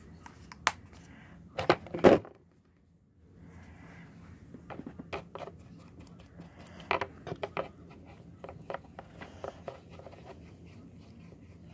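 Small clicks, taps and scrapes of a paintbrush working paint in the well of a plastic palette, with a few sharper knocks about two seconds in.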